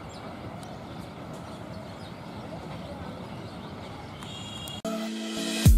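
Low, steady rumble of a distant vehicle. About five seconds in it cuts off suddenly and electronic music starts.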